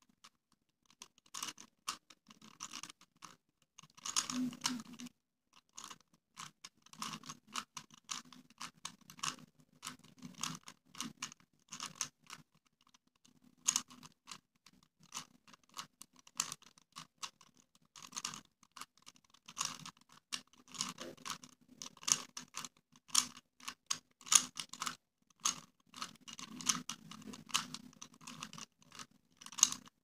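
A 3x3 Rubik's cube being turned by hand: quick, irregular runs of plastic clicks and scrapes as its layers are twisted while it is solved. There is one louder rustle about four seconds in.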